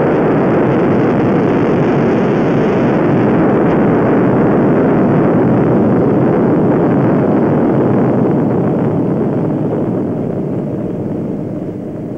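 Atomic bomb explosion on an old film soundtrack: a loud, steady rumbling noise that begins to fade over the last few seconds.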